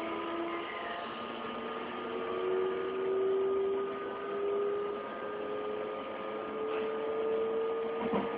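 JR West 225 series train's VVVF inverter and traction motors whining as the train accelerates: several steady tones slowly rising in pitch over the running noise of the car, with a brief clatter near the end.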